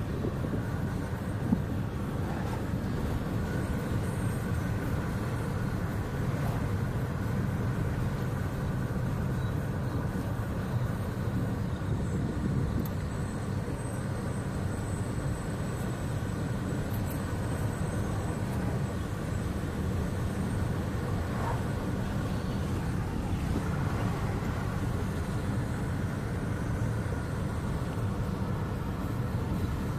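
Steady road and engine noise heard inside the cabin of a car driving along a road at an even speed, with a brief knock about a second and a half in.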